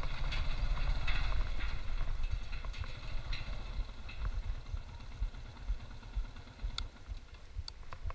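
Motorcycle rolling slowly across a cable suspension bridge: a low engine rumble with irregular knocks and rattles from the metal deck under the tyres, and a few sharp clicks near the end.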